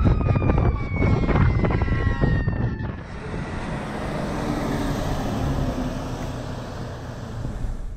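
Wind buffeting the microphone while a distant emergency-vehicle siren wails, its pitch falling slowly, for the first few seconds. After an abrupt change, a steady rush of road noise as a large fire-rescue truck drives past.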